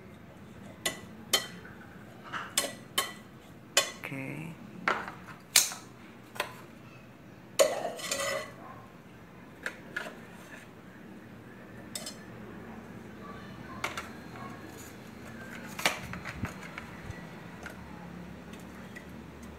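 Metal kitchen tongs clinking and knocking against a metal pot as chunks of root are set into it: a quick run of sharp clinks over the first eight seconds or so, then only a few scattered ones.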